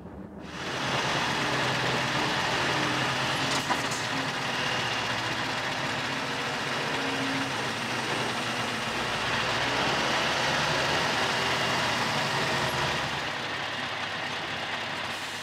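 Scania S520 truck's V8 engine running steadily, a continuous drone with no change in pitch.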